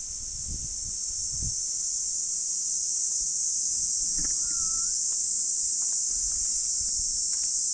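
Summer insects droning steadily at a high pitch, with a short faint whistled note about four seconds in.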